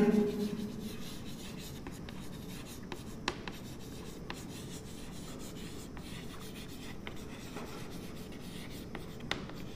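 Chalk writing on a blackboard: a soft scratching as the words are written, with a few light clicks of chalk striking the board, about three seconds in and again near the end.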